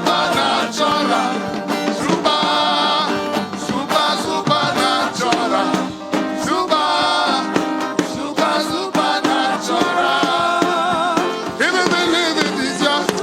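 Live gospel worship music: a band playing, with voices singing.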